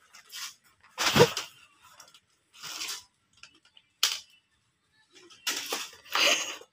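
Handling noises from a red plastic shopping basket and the crinkly snack packets inside it: several short rustling, crunching bursts, the loudest about a second in, with a sharp knock about four seconds in as the basket is set down.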